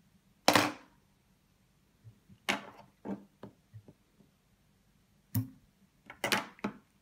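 Hands and a whip-finish tool working the tying thread at the head of a fly in a vise: about six short scraping, rustling sounds, the loudest about half a second in.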